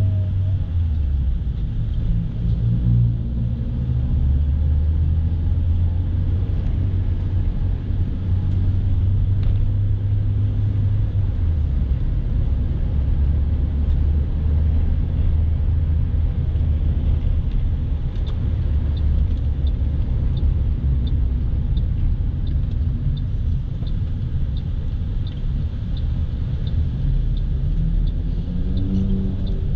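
Car cabin rumble of engine and road noise while driving, steady and low. About two-thirds of the way through, a light, even ticking starts and runs on, and near the end the engine note slides in pitch.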